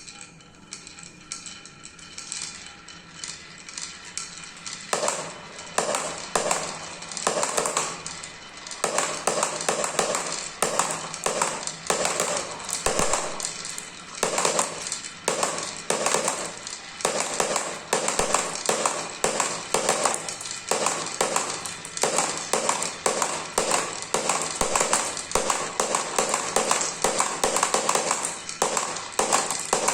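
Marbles clicking and clattering down a marble run, a quick run of taps that gets busier about five seconds in, with background music.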